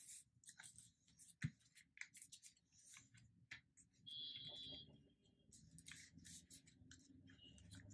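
Faint rustling and crinkling of paper sheets being folded and creased by hand, with a sharp tap about a second and a half in and a brief high-pitched tone around four seconds in.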